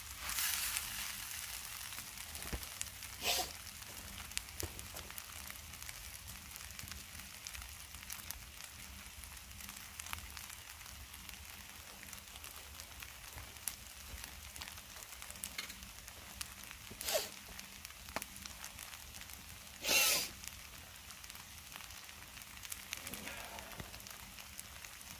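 Noodles sizzling in a pan on a camp stove: a steady soft sizzle with light crackling, broken by a few brief louder sounds, the loudest about twenty seconds in.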